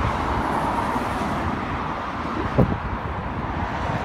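Steady road traffic noise from cars going past on a main road, with a brief thump about two and a half seconds in.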